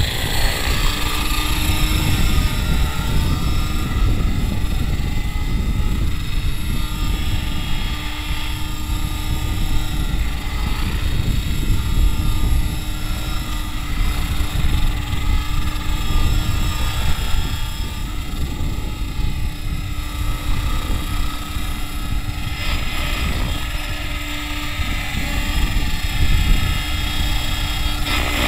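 HK500CMT radio-controlled model helicopter in flight: a steady rotor and motor whine that wavers slightly in pitch, over a heavy low rushing rumble.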